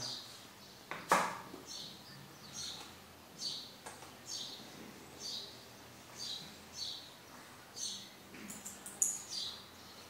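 A bird chirping over and over, short high calls about once a second, with a single sharp knock about a second in.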